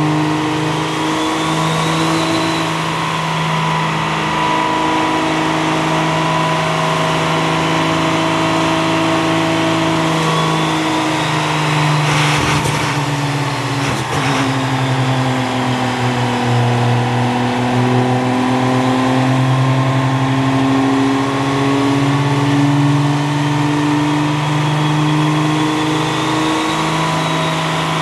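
6.7-litre diesel truck engine running hard on a chassis dynamometer, its pitch rising and falling slowly, with a thin high whine over it. A couple of sharp cracks come about 12 and 14 seconds in.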